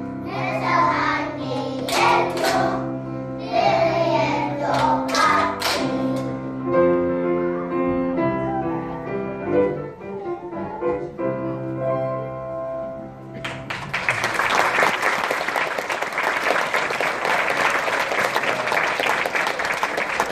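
Young children's choir singing with instrumental accompaniment, the song closing with a few seconds of accompaniment alone. About two-thirds of the way in, audience applause breaks out.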